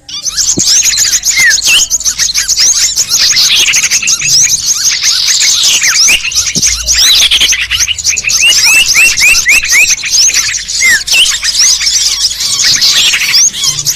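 Bird-luring recording of many small birds calling at once: a dense, loud chorus of overlapping high chirps and twitters, with quick rising and falling notes and short runs of repeated calls.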